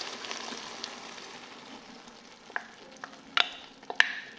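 Browned ground chicken sizzling in an Instant Pot slow cooker on the sear setting while a cream mixture is poured in from a glass measuring cup. The sizzle fades gradually, and a few sharp clicks come in the second half.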